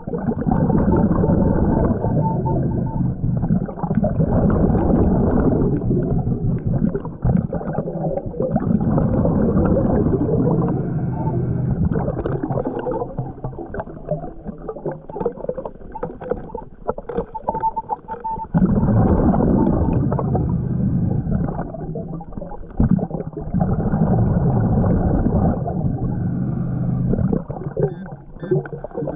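Scuba diver's exhaled breath bubbling out of the regulator, heard underwater: long bubbly rushes lasting a few seconds each, with quieter gaps between.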